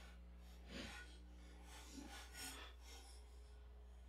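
Near silence: a faint low hum with a few faint scrapes of caliper tips scribing a line on a steel knife blank.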